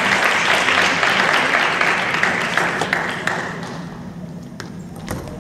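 Applause in a large hall, fading away about three and a half seconds in. Then a few sharp clicks of a table tennis ball off bat and table as the next rally starts.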